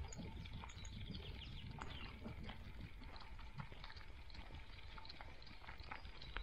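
Faint crackling and rustling of a dog's paws moving over a forest path, with a few short bird chirps and a low rumble of handling noise from the dog-mounted camera.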